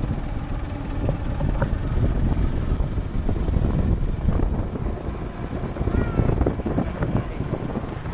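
Motorcycle-sidecar tricycle on the move: its small motorcycle engine running steadily, mixed with wind buffeting the microphone and the rattle of the ride.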